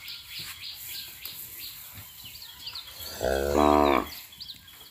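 Cattle mooing once, a single call of just under a second about three seconds in, while small birds chirp in the background.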